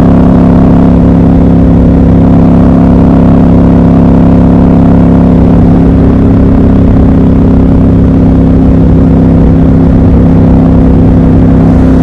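Triumph Scrambler 1200 XC's parallel-twin engine and exhaust at a steady highway cruise: a loud, constant drone that holds one pitch throughout.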